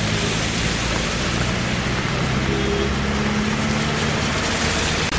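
An engine running steadily, its low hum carried under a loud, even hiss.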